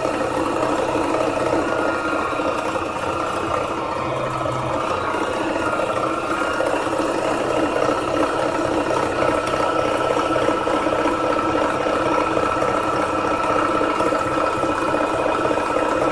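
Needle-felting machine running steadily with a constant high whine, its needles punching green wool felt as a leaf is felted.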